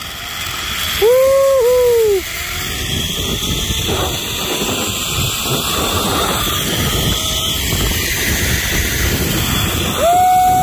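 Wind rushing over a phone's microphone during a zipline ride, a loud, steady noise. Two short whistling tones that each rise and fall twice cut through it, about a second in and again near the end.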